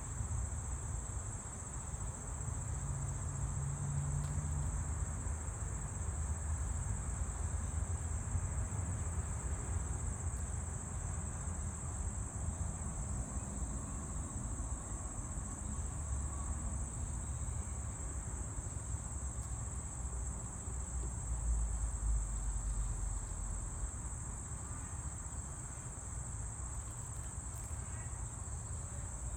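Steady, high-pitched drone of an insect chorus that runs without a break, over a low, uneven rumble.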